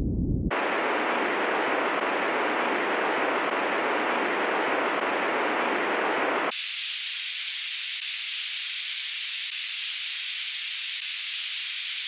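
Band-limited test noise for speaker channel matching, played in the right channel: bass-only noise for the first half second, then steady midrange noise, switching about six and a half seconds in to treble-only hiss.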